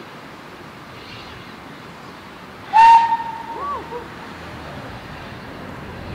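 Steam locomotive whistle on SR S15 No. 506 giving one short, loud blast about three seconds in: a clear, steady high note that breaks into a brief wavering tail as it shuts off, over a steady hiss.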